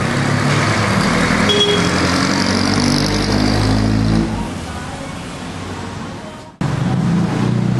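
Road traffic in the rain: a motor vehicle running close by on a wet road, fading after about four seconds. The sound drops out suddenly for a moment near the end, then comes back.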